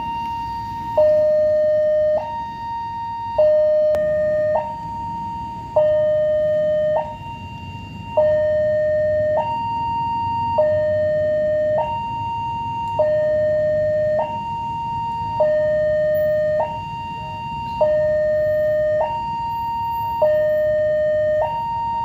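Railway level-crossing warning alarm sounding a steady hi-lo two-tone signal, each tone held a little over a second, warning of an approaching train. A low rumble runs underneath.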